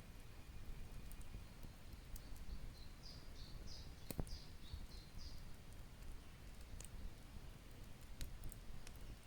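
A songbird sings a quick phrase of about eight short, high notes, each dropping in pitch, over a steady low rumble. A sharp click comes about four seconds in, with a few fainter clicks.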